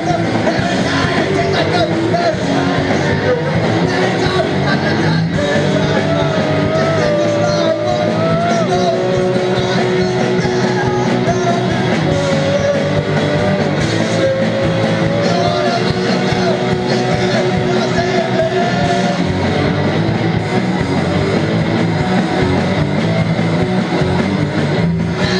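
Live rock band playing loud and steadily, with electric guitars and drums, and a wavering held melody line over the middle of the passage.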